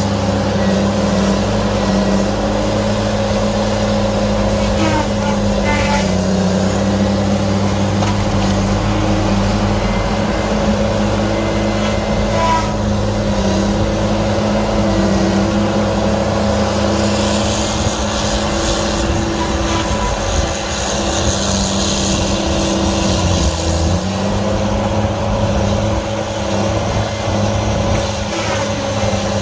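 Heavy equipment's diesel engine running at a steady speed, with a higher hiss joining for several seconds in the second half.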